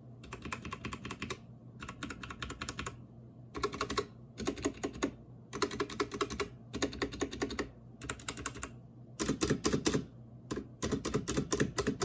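Outemu brown switches on an Atrix Sniper tenkeyless mechanical keyboard clacking as keys are pressed rapidly, in bursts of about a second with short pauses between.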